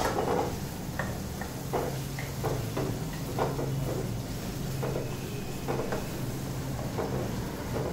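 A metal ladle and a wooden spoon knocking and scraping against a kadai and an aluminium pressure-cooker pot during stirring: irregular light knocks, roughly one a second, over a steady low hum.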